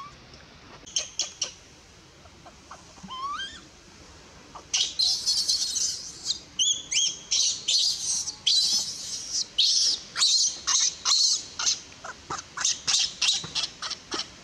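Infant macaque screaming in distress: a few short chirps and rising whimpers, then from about five seconds in a dense run of loud, shrill squeals, one after another, as its mother refuses it milk and pushes it away.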